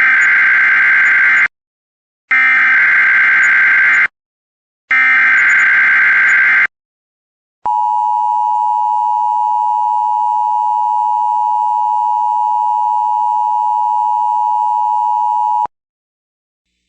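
Emergency Alert System header: three bursts of digital data tones, each under two seconds with short gaps between, then a steady attention-signal tone near 1 kHz held for about eight seconds. This is the alert signalling that an emergency message, here a tornado watch, is about to be read.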